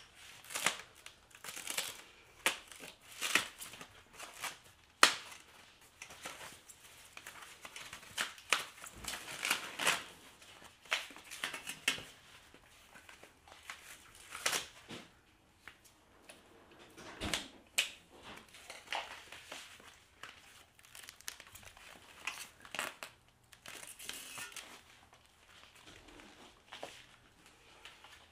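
Packing material crinkling, crumpling and tearing as it is stripped off a new e-bike during unboxing. The sound comes in irregular bursts, with a few sharp clicks among them.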